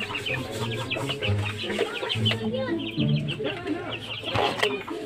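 Chickens clucking over and over, with background music underneath.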